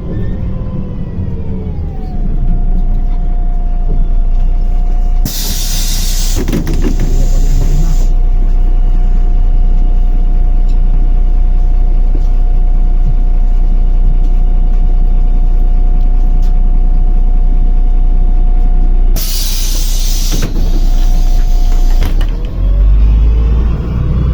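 MAZ-105 city bus heard from inside, its drivetrain whine falling as it slows to a stop, then running steadily while standing. Two loud hisses of compressed air, about five seconds in and again near twenty seconds, as the pneumatic doors open and close, and near the end a rising whine as the bus pulls away.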